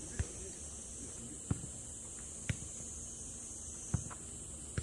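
Jokgu ball being kicked and bouncing on the court: five sharp thuds at irregular intervals, over a steady high-pitched hiss.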